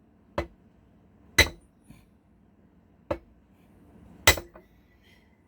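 Four hammer blows on metal, irregularly spaced, each with a short metallic ring; the second and fourth are the loudest. A tool is being driven into a locked safe's door to force it open.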